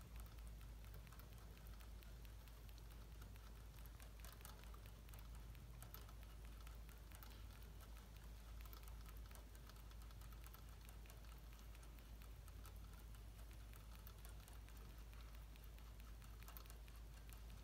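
Faint, irregular ticking of a dwarf rabbit licking at the metal spout of a cage water bottle as it drinks, over a low steady hum.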